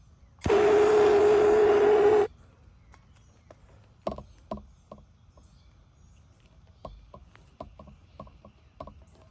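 Handheld electric hot-air blower running with a steady whine and rush of air, heating the 1/2-inch plastic drip tubing to soften it for the barbed fitting. It starts about half a second in and cuts off sharply about two seconds later. Irregular small clicks and knocks follow as the tubing is worked onto the fitting.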